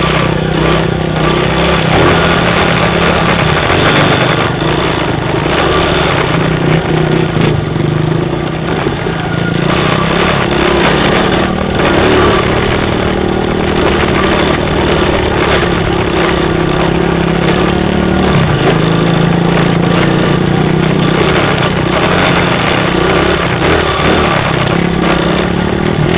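A vehicle engine running at a fairly steady speed, its pitch shifting slightly now and then.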